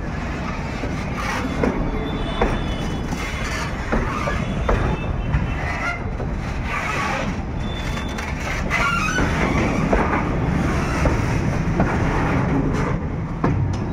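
Empty freight wagons of a goods train rolling past on the rails: a steady low rumble of wheels, with irregular clanks and knocks from the wagons.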